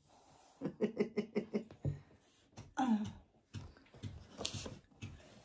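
Soft voices: a quick string of short syllables like quiet laughter or babble, then a single vocal sound that falls in pitch, and a few softer murmurs.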